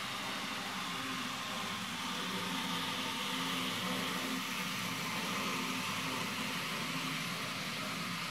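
Model train running along the layout's track: a steady motor hum and rolling hiss, a little louder around the middle.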